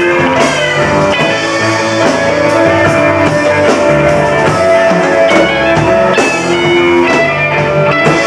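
Live rock band playing: electric guitar holding sustained notes over drum kit hits.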